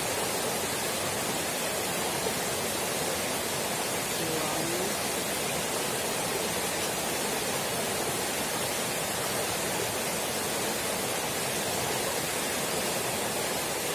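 A small rocky stream rushing steadily over stones and shallow riffles, an even, unbroken water noise.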